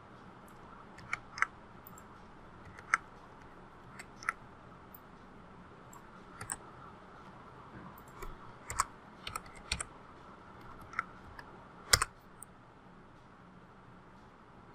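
Irregular computer keyboard keystrokes and clicks, a dozen or so scattered taps, one of them louder about twelve seconds in, over a faint steady hiss.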